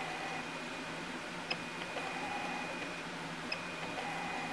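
Feed motors of a CEDAR Special programmable pattern tacker jogging the work clamp to a new coordinate while the arrow key is held. A faint click comes about every two seconds, each followed by a steady high whine.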